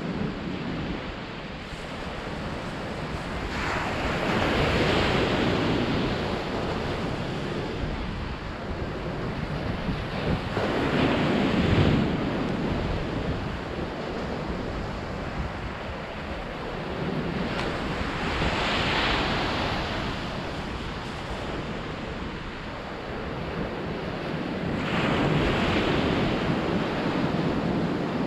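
Ocean surf breaking on a sandy beach, a wave crashing in roughly every seven seconds, four times, the one midway the loudest. Wind buffets the microphone throughout with a low rumble.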